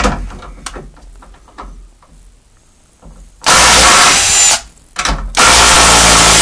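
Porter-Cable PCCK640LB impact driver hammering as it backs a thick 4-inch lag bolt out of wood. After some quiet handling clicks, it runs in a burst of about a second, pauses briefly, then starts again and keeps going.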